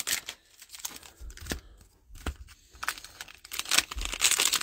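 Foil wrappers of Panini Mosaic football card packs being torn open and crinkled by hand: scattered rustles and snaps with short quiet gaps, growing louder near the end.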